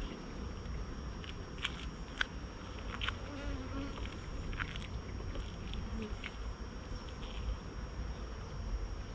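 Honeybees buzzing around an open hive, single bees passing close with a brief wavering drone, and a few sharp clicks as wooden hive frames are handled.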